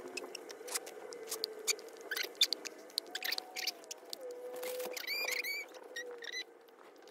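Soft clicks and rustles of a newborn in a cotton sleeper being handled and lifted on a bed, with a brief high squeak about five seconds in.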